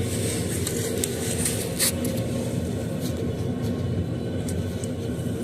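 A steady low rumble with a few light clicks and taps scattered through it.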